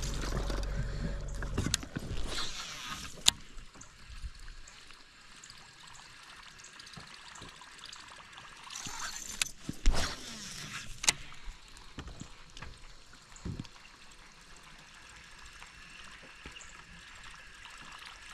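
Small waves lapping and splashing against a fishing boat, with a low motor hum that stops about two seconds in. A few sharp clicks and short splashy swells come about three, ten and eleven seconds in.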